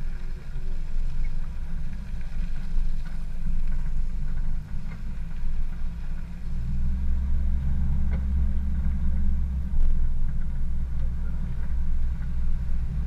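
A 4x4 driving slowly over a rutted dirt track: a low engine and road rumble with a few faint knocks. The rumble grows louder about halfway through.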